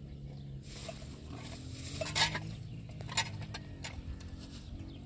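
Utensil scraping and clinking against a cooking pot: several short strokes, the loudest about two seconds in.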